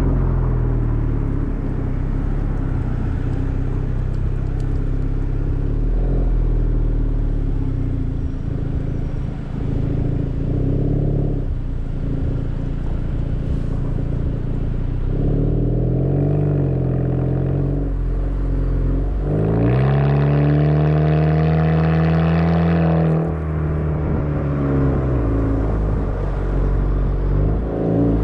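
Kia Rondo's exhaust, recorded close to the tailpipe while driving, with a steady drone under road noise. The pitch rises and levels off several times as the car accelerates. The strongest pull comes about two-thirds through: a rising note that holds for a few seconds.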